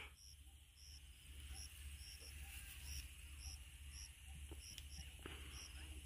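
Faint insect chirping: a short, high chirp repeating about every half second or so over a steady, thin high hiss.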